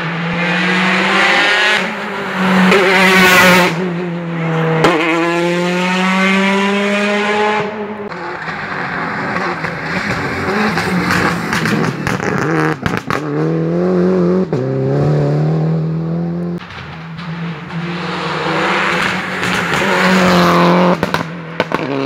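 Rally cars at full throttle on a special stage, their engines revving high and climbing through the gears, with the pitch dropping at each shift. Sharp pops and cracks mid-way and again near the end.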